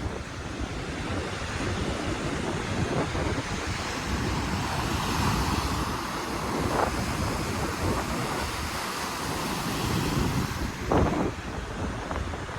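Pacific Ocean surf breaking on the beach, a steady rushing wash that swells in the middle, with wind buffeting the microphone and a couple of brief louder gusts.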